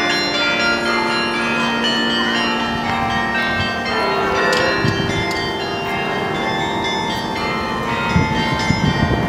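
The church bells of St. Servatius ring the hour as a peal of several large bells, their strikes overlapping into a dense, sustained ringing. A rougher low rumble joins in near the end.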